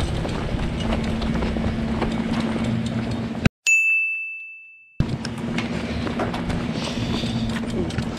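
Outdoor background noise with a steady low hum, cut off about three and a half seconds in by an edited-in "ding" sound effect: one clear bell-like tone over silence, fading away over about a second and a half. The background noise and hum then return.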